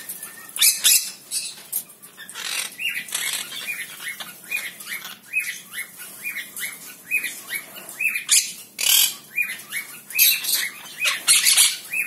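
Monk parakeets calling: a run of short, falling chirps, about two a second, broken by several loud, harsh squawks.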